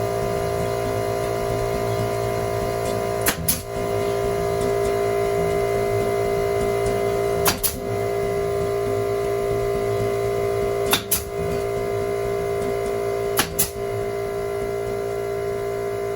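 Brad nailer firing four times a few seconds apart, each shot a sharp double click, over a steady mechanical hum.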